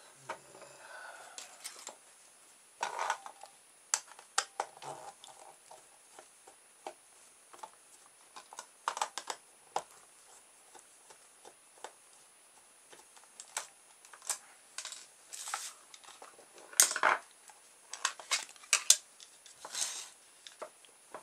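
A small screwdriver undoing screws and the plastic case of a sound-activated LED light being handled and pried open: scattered clicks, light scrapes and small knocks on a wooden tabletop, with several sharper knocks near the end.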